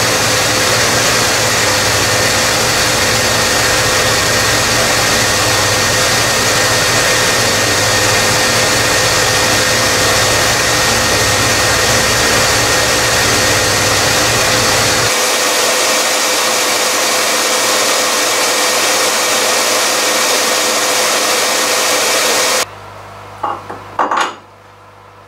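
Dumore 44 tool post grinder running, its wheel taking a light grinding pass on the back face of a turning lathe spindle nose: a steady loud hiss of grinding with a steady tone through it. The deeper hum drops away about 15 seconds in. The grinding cuts off suddenly near the end, followed by a few knocks as a steel back plate is offered up onto the spindle nose.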